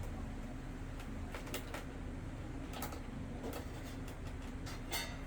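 Light plastic clicks and taps from handling the electric fan's plastic housing and back cover during disassembly, scattered and irregular, with a small cluster near the end, over a faint steady hum.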